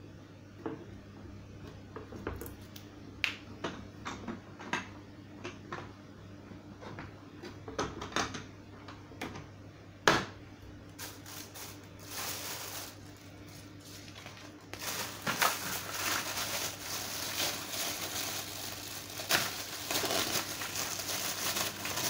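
Plastic parts of a Morgan 3-in-1 vacuum cleaner being handled during assembly: scattered clicks and knocks, with one sharp click about ten seconds in. From about fifteen seconds on, steady crinkling of a plastic bag as an accessory is unwrapped.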